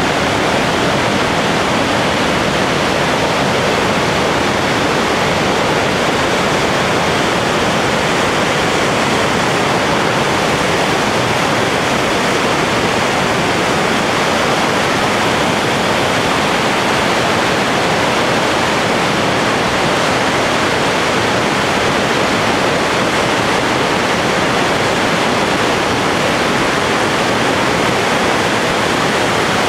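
Merced River rushing fast and loud over rocks, a steady, unbroken roar of white water.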